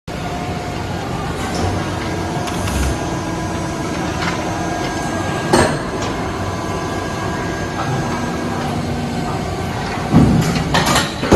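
Plastic injection moulding machine running: a steady mechanical hum with a few held tones, a sharp knock about five and a half seconds in, and a louder cluster of knocks and clanks near the end.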